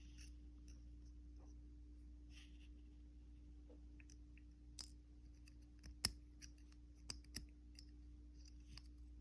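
Faint, scattered small clicks and ticks of a pin-tumbler lock being taken apart, as brass driver pins and springs are worked out of the lock body, over a steady low hum. The sharpest click comes about six seconds in.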